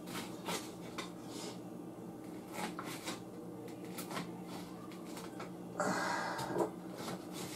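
Light kitchen handling noise: scattered clicks and knocks, with a brief louder rush of noise about six seconds in, over a steady low hum.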